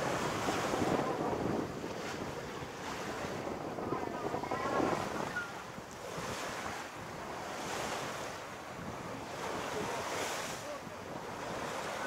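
Sea water rushing and hissing past the hull of a sailing yacht under sail, the bow wave breaking, with wind buffeting the microphone. The noise swells and ebbs every second or two as the boat moves through the waves.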